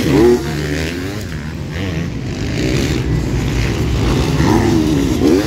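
Several motocross bikes' engines revving hard on the track, their pitch repeatedly climbing and dropping. One bike is louder with a sharp rising rev just after the start, and another just before the end.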